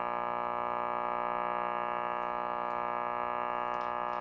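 A 1951 Silvertone tube clock radio playing music from a received station through its own speaker, with long held notes that do not break. The set is receiving again after its repair.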